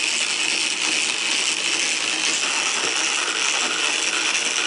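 Clockwork wind-up caterpillar toy running across a tabletop, its spring mechanism giving a steady, fast rattling whir.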